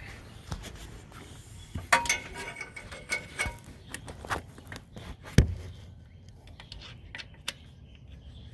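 Hand tools working on metal under a car: scattered clicks and knocks. One metallic clink about two seconds in rings briefly, and a sharper knock comes past five seconds.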